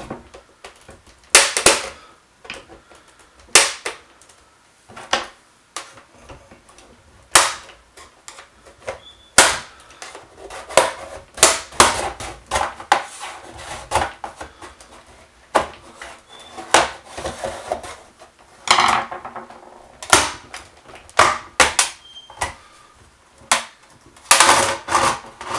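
Plastic snap clips on an HP 24ES monitor's back cover popping loose as the cover is pried off with a plastic pry tool and a flat screwdriver: a long run of sharp, irregularly spaced snaps and clicks, some in quick clusters, with plastic scraping between them.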